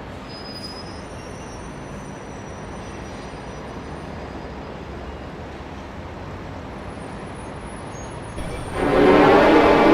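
Steady city traffic noise, a continuous rumble and hiss of road vehicles. Near the end a much louder, layered pitched sound cuts in and holds.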